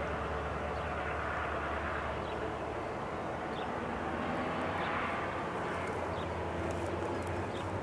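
Freight train rolling past at a distance: a steady low rumble.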